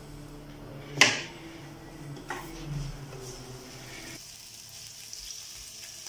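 Marinated chicken strips sizzling in hot olive oil in a frying pan as they are laid in by hand, a steady high hiss. A single sharp clack about a second in is the loudest sound.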